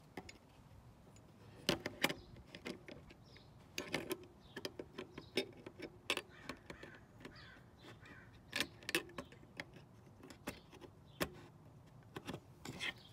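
Irregular clicks and taps of a circuit board being handled and pressed down onto header pins, with a few sharper knocks against an aluminium case.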